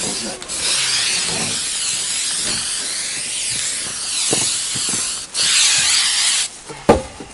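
Aerosol spray-paint can spraying in a long steady hiss, stopping briefly about five seconds in, then a second shorter burst. A single sharp knock follows near the end.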